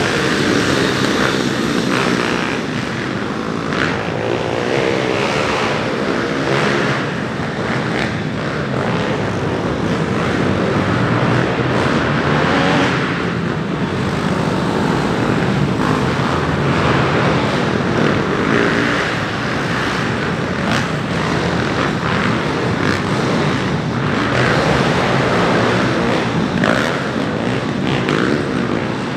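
Several dirt bike engines revving up and down as the bikes ride an indoor arenacross track, overlapping without a break.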